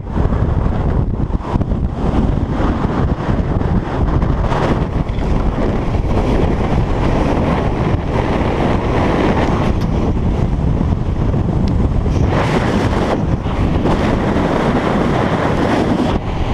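Strong gusting wind buffeting the microphone: a dense, loud low rumble, with harder gusts swelling several times.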